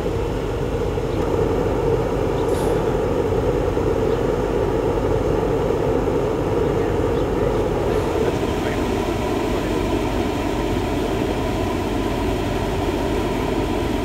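Scaled-down industrial oil burner firing: the burner motor runs and the atomized oil burns in a large open flame, making a loud, steady rushing noise.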